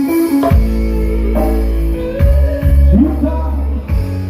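Live electone band music: a keyboard holding sustained chords over a loud, heavy bass line.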